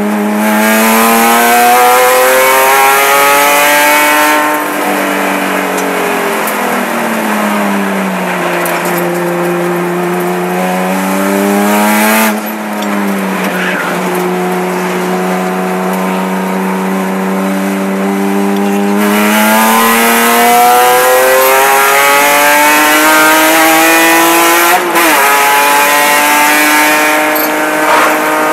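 Onboard, in-cabin sound of a 1999 Porsche 996 Carrera race car's flat-six engine under hard driving. The revs climb, fall away from about four seconds in, hold low and steady through a long corner, then climb hard again with a brief break about 25 seconds in.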